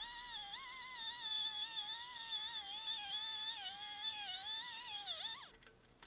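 A high, sustained, wavering tone with many overtones, like a theremin or synthesizer melody, sliding slowly up and down in pitch. It stops about five seconds in.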